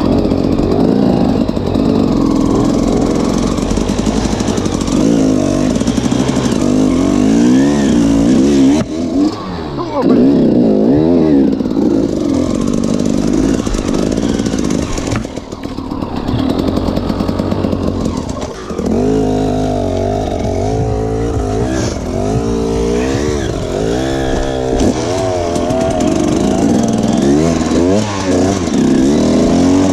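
Enduro motorcycle engine under riding, its pitch rising and falling over and over as the throttle is opened and closed, with brief drops about 9, 15 and 18 seconds in.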